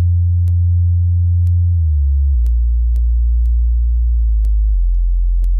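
Subwoofer test signal: very deep, steady bass tones that step to a new pitch every couple of seconds, over a faint tick about twice a second.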